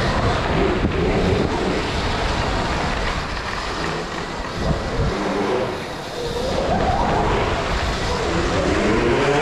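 Off-road motorbikes riding around an indoor dirt track, their motors' pitch rising and falling as they accelerate and slow, over a low rumble.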